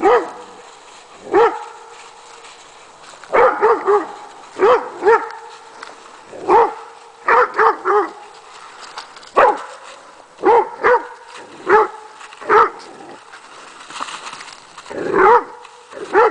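A dog barking at an armadillo: about eighteen short barks, some single and some in quick runs of two to four, with short pauses between.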